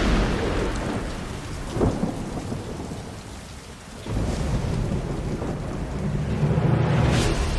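Thunderstorm: steady heavy rain with a sharp thunder crack about two seconds in, a low thunder rumble that sets in abruptly at about four seconds, and another crack near the end.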